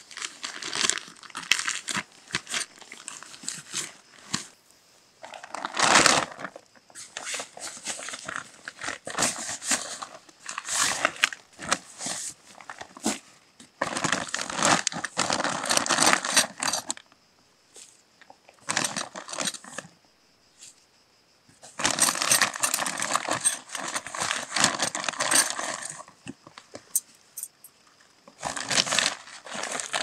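Tent fabric and its stuff sack rustling and crinkling as they are pulled out and handled, in irregular bursts with a few short pauses.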